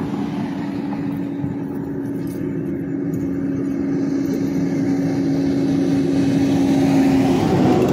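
A motor vehicle's engine running close by with a steady hum, growing louder through the stretch. Near the end its hum drops to a lower pitch.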